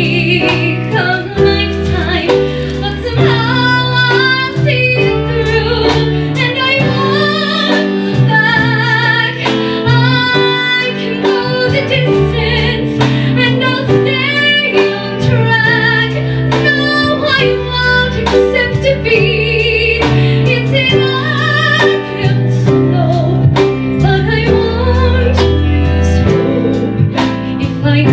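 A woman singing a ballad with vibrato into a microphone, backed by a live band of piano, electric guitar, bass and drums.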